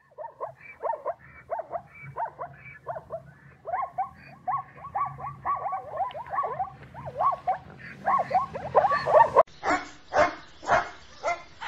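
Plains zebras calling: a long run of short, yelping bark-like calls that come faster and louder as it goes on. About nine seconds in, the sound cuts to a border collie barking, several sharp barks.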